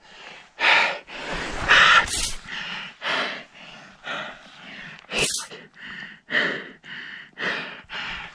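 A man's heavy, rapid breathing close to the microphone, about two gasping breaths a second, one sharper than the rest a little past five seconds in. He is out of breath after just dodging an avalanche that swept over him.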